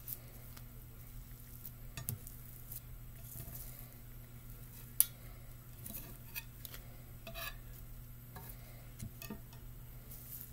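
A table knife spreading sticky rice over a nori sheet, with soft scrapes and scattered light clicks of the blade against the plate underneath. One sharp click about halfway through.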